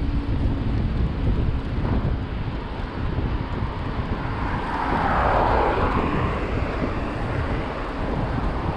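Wind rumbling steadily on the microphone of a moving bicycle. Over it, the noise of a passing vehicle swells to a peak about five seconds in, then fades.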